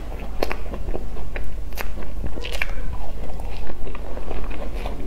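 Chewing a mouthful of cream-filled, crumb-topped cream puff, with scattered sharp crackly clicks.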